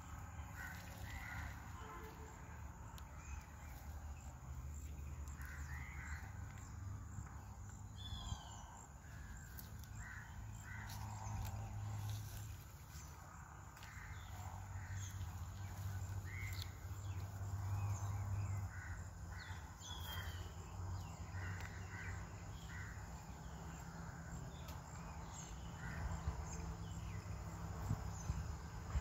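Grey hornbills giving short calls at irregular intervals, with a couple of higher falling whistles, over a steady low rumble.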